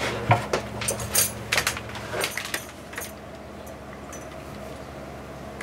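Plastic tubing and fittings of a reverse osmosis filter kit rattling and clicking as they are handled, a quick run of light clicks over the first three seconds, then only a few faint ticks. A steady low hum runs underneath.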